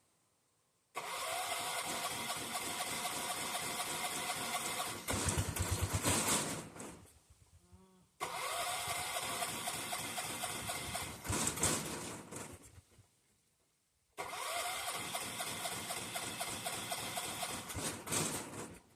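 1976 John Deere 300 riding mower engine being cranked three times, each try about five seconds long with a brief surge near its end, and not catching. It is a hard cold start; the owner thinks the engine has flooded itself.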